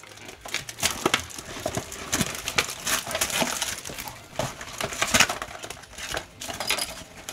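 Cardboard Pokémon TCG Mystery Power Box being torn open by hand, the paperboard ripping and the packaging crinkling in a run of irregular crackles.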